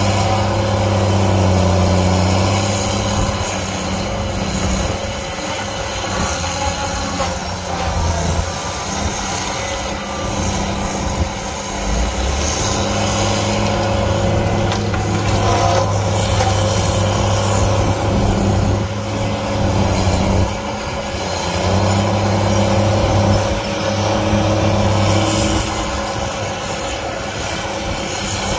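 Heavy equipment's diesel engine running steadily under working load, its level rising and easing every few seconds.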